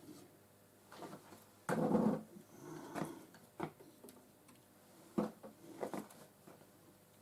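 Knocks and clunks of things being handled and set down on a workbench: a heavier clunk about two seconds in, then several sharper single knocks.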